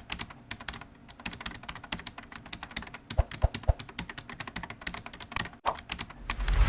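Rapid, irregular light clicks and taps, several a second. A few low knocks come just past the middle, and a low rumble swells up near the end.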